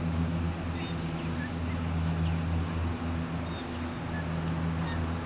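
A steady low mechanical hum, like a motor running nearby, with faint scattered bird calls over it.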